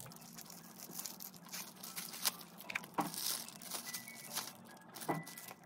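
Thin plastic packaging crinkling and tearing in irregular crackles: a small sachet torn open, then the plastic film wrapper of a triangle kimbap being pulled apart.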